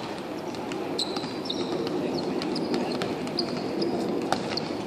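Players running on a hard futsal court: footfalls and short high shoe squeaks, with a sharp ball kick about four seconds in.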